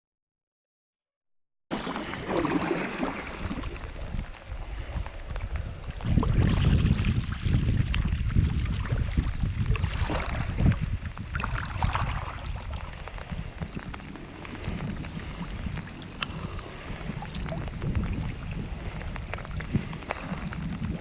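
After about a second and a half of dead silence, wind buffets the microphone in gusts, a heavy low rumble that grows stronger about six seconds in, with scattered small ticks of rain.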